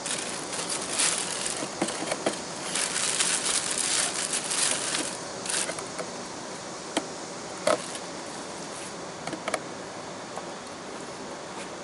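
Clear plastic wrapping crinkling and rustling as sneakers are handled in and out of a cardboard shoebox, busiest for about the first five seconds. After that come a few light knocks and clicks.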